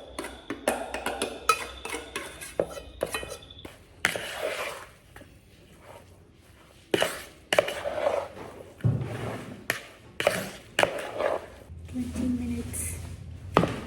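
Spoon, bowl and dishes clinking and clattering in irregular bursts while raw chicken is mixed with its ginger, garlic, chili powder and salt marinade.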